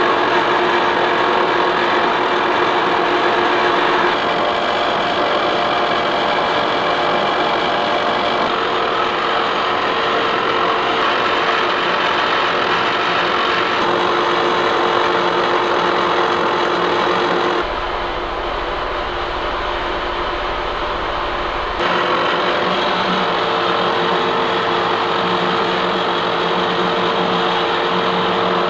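Horizontal boring mill face-milling a thick metal heat exchanger plate: a steady run of cutting noise over a constant machine whine. About two-thirds of the way through it drops for about four seconds to a quieter low hum, then the steady cutting sound returns.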